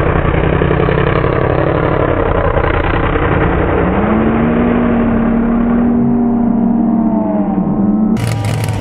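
Mega mud truck's big engine running hard at high revs, its pitch climbing about four seconds in and then holding. About eight seconds in the sound changes abruptly to a harsher engine with clatter.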